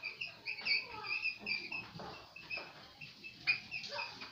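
Whiteboard marker squeaking across the board in many short, quick strokes while words are written.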